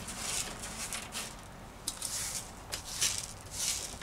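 Small hand brush sweeping shattered glass across a laminate floor in several short strokes, the glass shards scraping.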